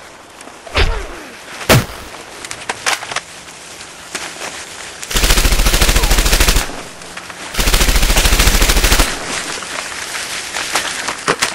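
Gunfire: two sharp single shots about a second apart, then two long bursts of rapid machine-gun fire, each about a second and a half, with a second's pause between them.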